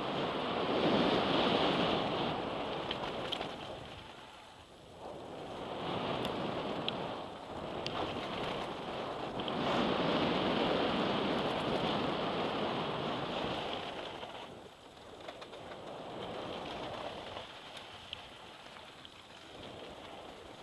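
Mountain bike rolling fast down a dirt trail: tyre noise on packed dirt and gravel mixed with wind rushing over the handlebar-mounted camera, swelling and fading as the bike speeds up and slows through the berms. A few light clicks and rattles come through.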